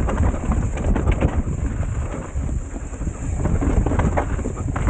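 Mountain bike descending a rooty, rocky dirt trail: a constant rumble of the tyres over the ground, with many short knocks and rattles of the bike over roots and rocks, and wind on the microphone.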